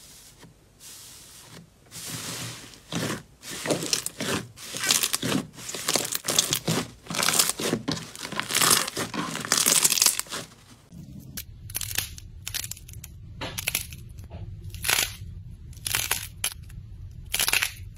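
Hands squeezing and kneading air-filled slime, giving dense crackling and popping of trapped air. About eleven seconds in it changes to sharper, separate crackles as a soft, fluffy slime is pulled apart.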